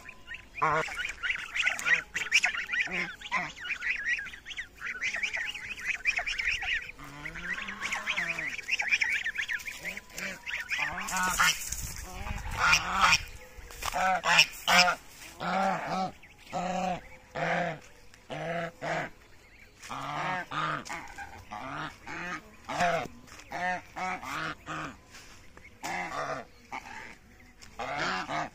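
Domestic geese honking over and over, a run of short loud calls about one or two a second that takes over after the first ten seconds, with a dense high chatter of calls before it.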